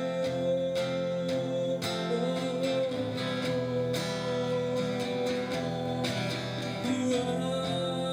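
Instrumental break in an Indonesian devotional song between sung lines: music with a steady beat and a long held note.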